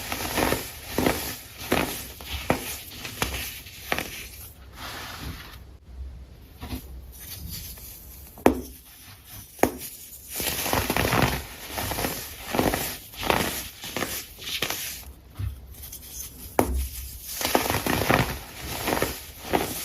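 Repeated crunching, roughly two crunches a second, thinning out with a brief pause around six seconds in and picking up again from about ten seconds.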